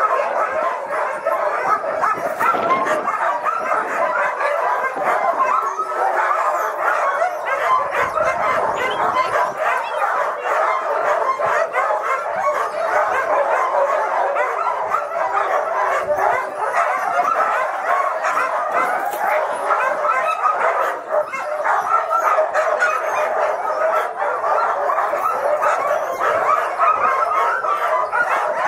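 A pack of sled dogs barking all at once in a continuous, overlapping din: the excited clamour of sled dogs being hitched up and eager to run.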